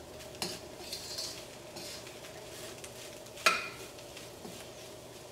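Perforated metal spoon stirring and tossing cooked rice in a stainless steel kadai, with soft scraping and a few light clicks. About three and a half seconds in, the spoon strikes the pan with a sharp clang that rings briefly. A faint steady hum runs underneath.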